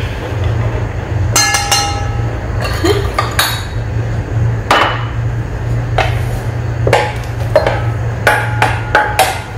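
Stainless steel mixing bowls and a spatula clanking and scraping as shredded chicken is knocked out of one bowl into another: about a dozen sharp, ringing metal knocks at uneven intervals, over a steady low hum.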